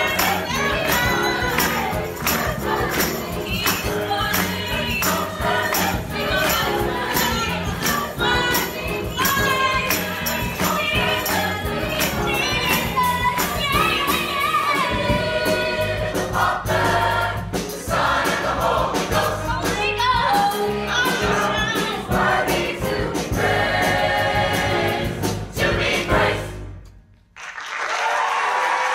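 Large mixed choir singing with a female soloist belting into a microphone over piano and band, with handclaps on the beat. The music cuts off about 27 seconds in and applause starts.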